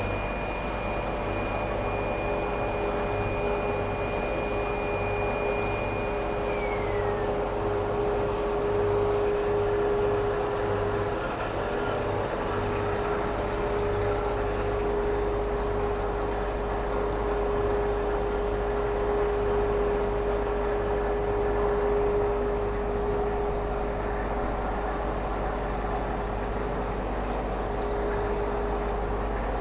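Cast stretch film production line running, a steady industrial machine hum with a held mid-pitched tone. A high whine drops away about seven seconds in, and a low hum pulses about twice a second through the first half.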